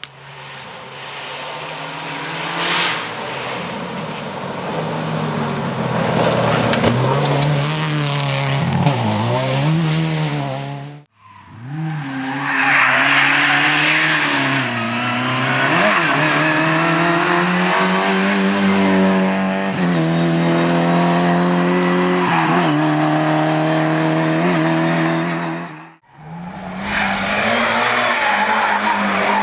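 Race car engines revving, their pitch rising and falling, with tyres squealing, in three separate clips that cut abruptly about 11 and 26 seconds in.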